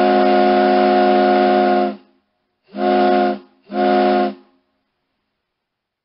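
Ship's horn sounding several tones together: a long blast that cuts off about two seconds in, followed by two short blasts.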